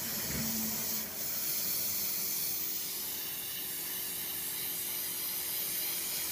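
Paint spray gun spraying a touch-up coat onto a thresher's sheet-metal body: a steady airy hiss.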